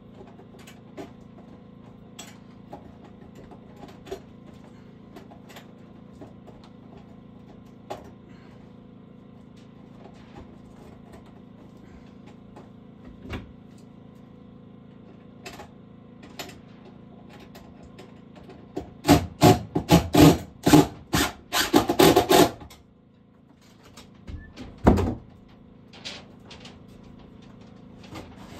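A quick run of about ten loud knocks in some three seconds, then one more knock a couple of seconds later, over a steady low hum and light scattered ticking.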